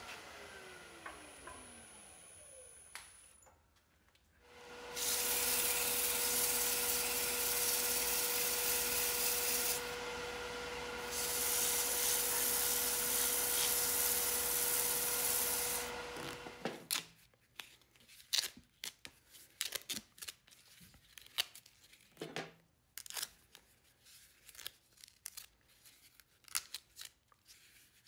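A wood lathe winding down, its motor whine falling in pitch. Then a loud, steady hiss of sandpaper held against the spinning turning over the lathe motor's steady tone, easing briefly partway and stopping suddenly. After it comes a run of short clicks and knocks as wooden blocks are handled.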